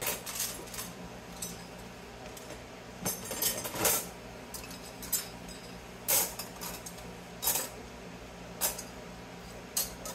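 Flat scrap copper pieces clinking against each other as they are handled and dropped into a plastic tub: a series of separate sharp clinks, a few in quick succession about three to four seconds in.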